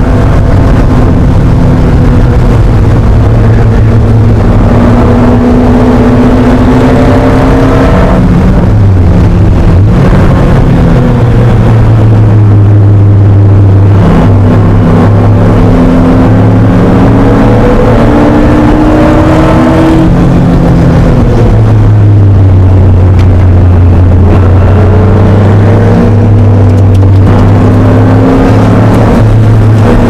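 Very loud air-cooled 3.0-litre flat-six of a 1980 Porsche 911 SC, heard from inside the cabin while racing on track. The note climbs slowly under load and drops sharply four times as the car shifts or lifts for corners.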